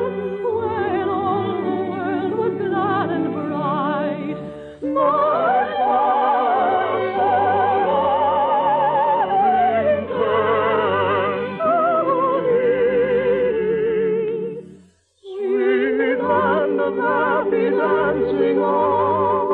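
Orchestral music with operatic singing; the held notes waver with a wide vibrato. About fifteen seconds in, the music breaks off for a moment, then starts again.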